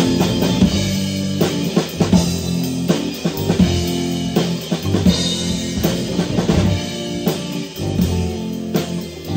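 Rock band playing live: electric guitars and bass over a drum kit, with steady kick, snare and cymbal hits.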